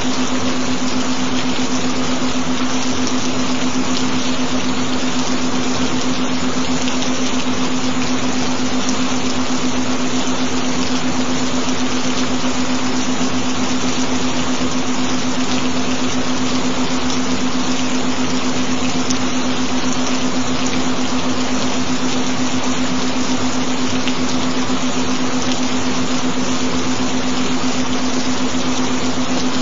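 Steady recorded rain hiss, even and unbroken, with a loud constant low tone held beneath it, the kind of frequency tone laid under meditation and subliminal tracks.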